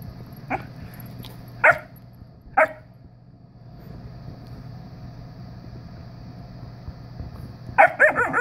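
Siberian husky puppy barking in play: three short, sharp yips about a second apart, then a quick run of yips near the end.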